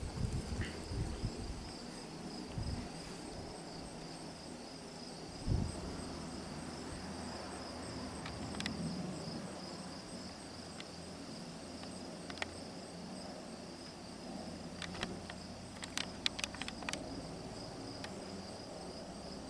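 Crickets chirping in a steady, high-pitched pulsing trill. There are a few low thumps on the microphone at the start and again about five seconds in, and a short run of sharp clicks near the end.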